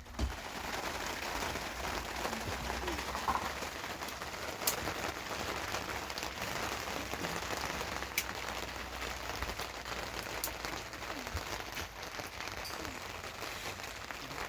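Heavy rain falling steadily, a dense even hiss with a few sharp taps.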